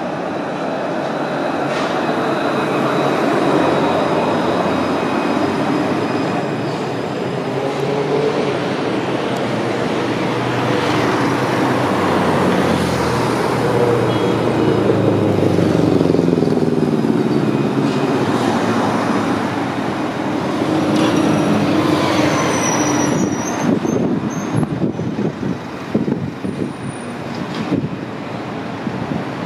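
Alstom Citadis trams of Paris line T3 running past on their rails: a steady rumble of wheels and running gear, with the electric traction drive's whine falling in pitch as a tram goes by. A few brief high squeals come near the end as a tram rounds a curve.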